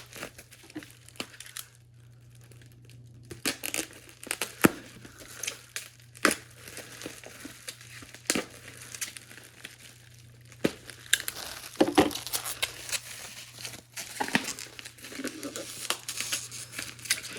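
Packing material in a shipping box crinkling, rustling and tearing as it is handled and pulled out by hand, with many scattered sharp crackles.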